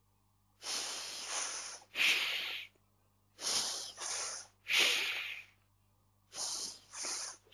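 A man's voice making the Mandarin hissed consonants x, s and sh without vowels, each drawn out for half a second to a second, in three runs one after another. Some of the hisses are high and sharp, others lower and fuller, as in sh.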